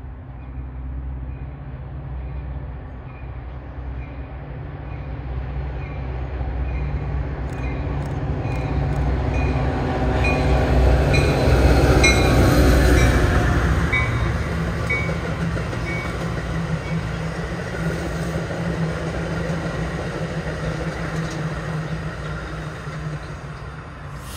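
A Metra commuter train of bilevel gallery cars passing, with a steady low diesel hum and wheel rumble. It builds to its loudest about halfway through and then holds as a steady rumble as the cars go by. Faint regular clicks sound through the first half.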